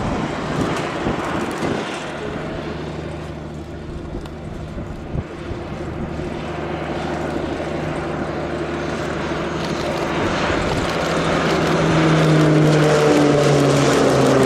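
Air Tractor AT-802 single-engine turboprop flying a low pass, its propeller and engine drone steady. It fades a little, then swells louder as the plane comes close, and the pitch drops near the end as it goes by.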